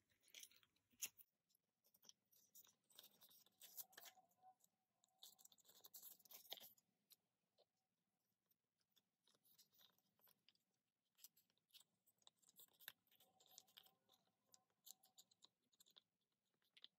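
Near silence with faint scattered clicks and crinkles of plastic card sleeves and binder pages being handled as photocards are slid into pockets, gathered mostly a few seconds in and again later on.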